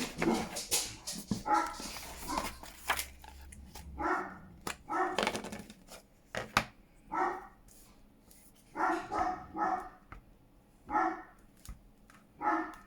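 Dog barking repeatedly, single and paired barks every second or so. Paper rustling and small clicks in the first few seconds.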